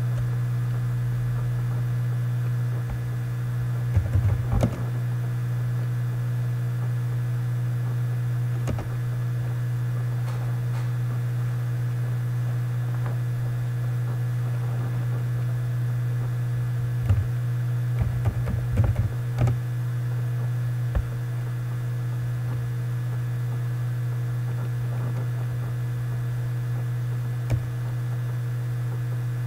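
Steady low electrical hum with scattered clicks, and a cluster of quick taps about two-thirds of the way through: typing on a computer keyboard, with mouse clicks.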